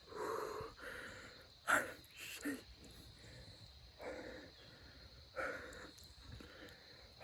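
Heavy, excited breathing close to the microphone: several short, breathy huffs, one sharper and louder a little under two seconds in.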